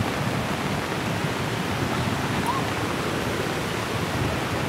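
Steady rushing hiss of heavy rain and flash-flood water, even and unbroken.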